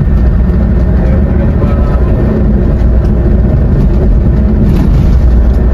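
Steady, loud low rumble of a Scania K400IB touring coach under way, its engine and road noise heard from inside the cabin.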